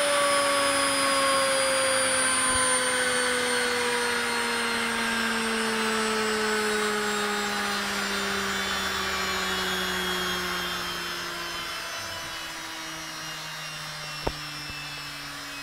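Washing machine's 240 V universal brushed motor, running bare and spinning down: its whine falls steadily in pitch and fades over a rushing noise that dies away about twelve seconds in. A single click comes near the end.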